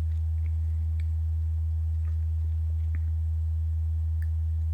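Steady low electrical hum, with a few faint light clicks and taps.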